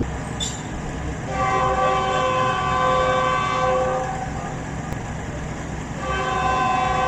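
Locomotive air horn sounded twice, several notes at once: a blast of nearly three seconds, then a second blast starting near the end, over the steady low rumble of the train.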